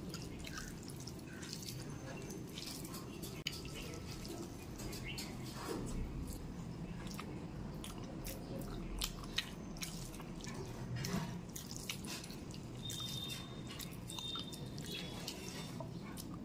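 Close-miked eating by hand: wet clicks and smacks of chewing rice and chicken skin curry, with fingers squishing rice and curry together.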